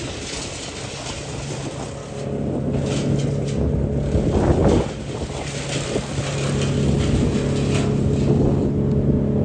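A motor running steadily with an even drone, with wind gusting on the microphone.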